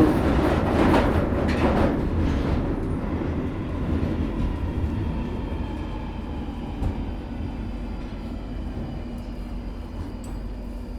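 London Underground train running, its rumble fading steadily while a faint motor whine falls in pitch, as a train slowing down does.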